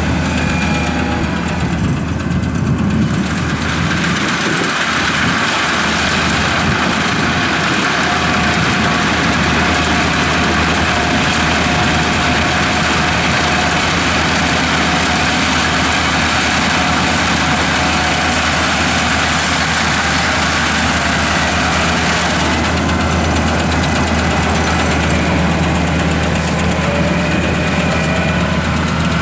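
Kubota AR96 combine harvester's diesel engine running steadily, with a noisy mechanical rush above it that eases off about three-quarters of the way through.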